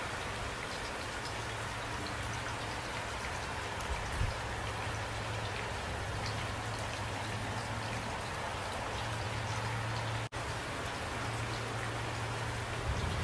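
Steady rain falling. The sound cuts out for an instant about ten seconds in.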